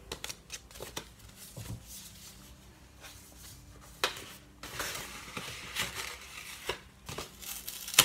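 Cardboard and paper packaging being handled and opened: scattered taps and clicks, then denser rustling and crinkling in the second half.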